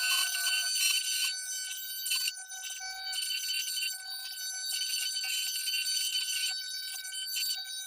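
CNC router spindle running with a steady high whine while the bit cuts a mold into wood, the cutting noise rising and falling as the bit moves along its path.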